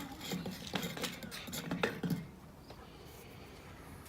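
A few light clicks and scrapes of handling in the first two seconds, then quieter.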